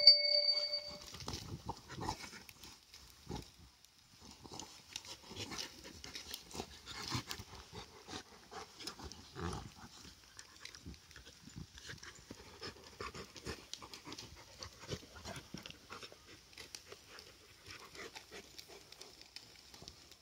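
A German shepherd and a Doberman play-fighting: irregular dog growls, grunts and snorts with scuffling on the grass. A brief sharp, high-pitched sound in the first second is the loudest moment.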